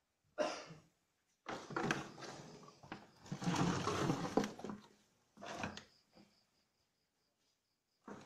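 Bursts of rustling and knocking handling noise from the camera and gear being moved about, the longest and loudest from about one and a half to four and a half seconds in, with a short knock near the end.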